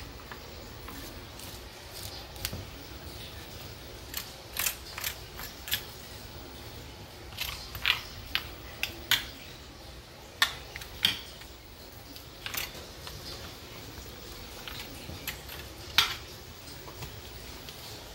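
Scattered sharp clicks and taps, about a dozen at irregular intervals, from a hand rubbing mustard into raw pork ribs on a metal baking sheet, over a steady low room hum.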